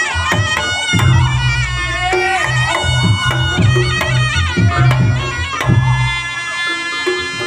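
Reog Ponorogo gamelan music: a slompret (Javanese shawm) playing a nasal, wavering melody over steady drum and gong strokes. The drums and gongs drop out briefly near the end while the shawm carries on.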